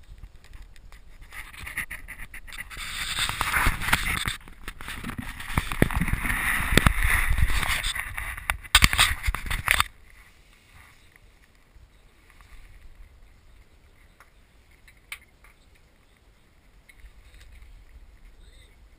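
Rough rubbing and knocking of an action camera being handled and fitted, loud and irregular, stopping about ten seconds in. After that it is quiet, with a few faint clicks of small wooden automaton parts being handled.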